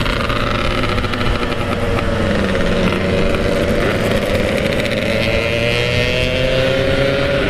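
Two-stroke motorcycle engine running under way, its note dipping slightly and then climbing steadily through the last few seconds as the bike accelerates.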